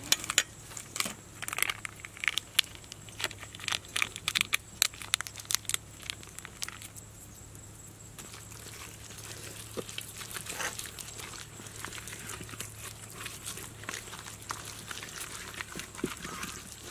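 Hands rubbing a wet chili and salt paste into a raw pork rib, making sticky squelches and smacks. The smacks are sharp and scattered in the first half, then a quieter, denser clicking follows.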